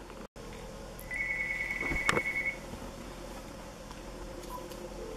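Cordless phone ringing: one electronic, trilling ring about a second and a half long, starting about a second in, with a click partway through.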